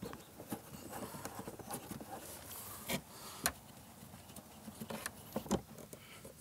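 Scattered light clicks and knocks from hands fitting a rubber bushing and fitting into the hole in a plastic pond skimmer wall, a few sharper knocks about three and five and a half seconds in.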